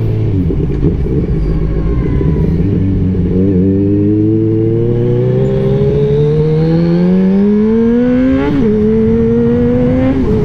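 Kawasaki Z1000 inline-four engine with a single exhaust accelerating, its pitch climbing steadily with the revs. About eight and a half seconds in the pitch drops sharply at an upshift, then climbs again until another shift near the end.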